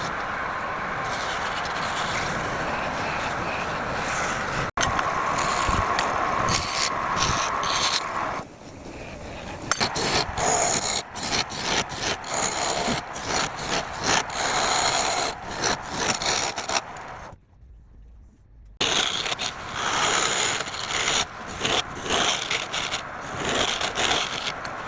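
Wood being cut and scraped on a woodturning lathe, a steady rasping that changes many times with abrupt cuts and drops briefly near the end.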